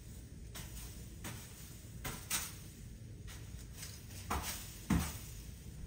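Broom bristles swishing across the floor in a series of short sweeping strokes, with a louder stroke and a low thump about five seconds in.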